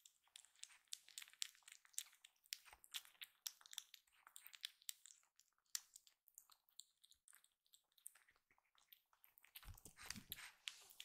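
A kitten eating wet food from a ceramic bowl: a quick, irregular run of small wet chewing and licking clicks, with a few low thuds near the end.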